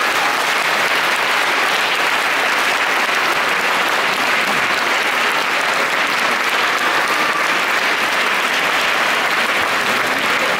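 Concert audience applauding steadily.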